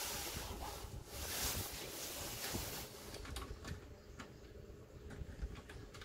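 Hands fitting nuts onto the waste tank's mounting-bracket bolts by touch: a scraping rustle for the first few seconds, then several light clicks.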